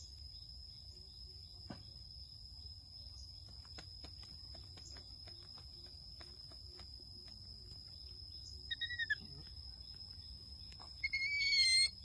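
Baby monkey giving high, wavering squeaky calls: a short one about nine seconds in and a longer, louder one near the end. Under them runs a steady high insect drone, with faint scattered clicks.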